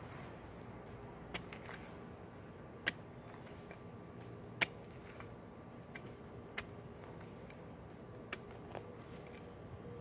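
Metal shovel blade digging into dry, clumpy soil, giving sharp scrapes and clicks every second or two at irregular intervals.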